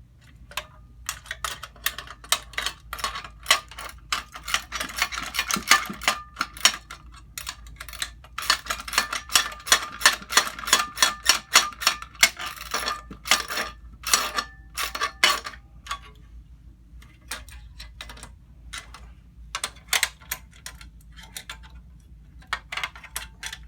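Socket wrench ratcheting as nuts are tightened onto the bolts holding an aluminum fender to a cart frame: fast runs of sharp metallic clicks, dense for most of the stretch, then fewer and more spaced out near the end as the nuts snug up.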